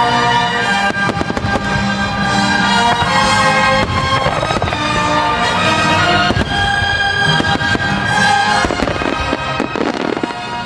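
Fireworks display finale: many shell bursts in quick, irregular succession over loud music with held tones.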